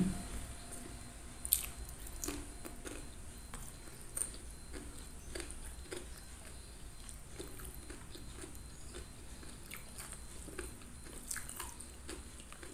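Close mouth sounds of a person chewing a mouthful of rice and fish, with scattered soft smacks and clicks and a sharper click about a second and a half in.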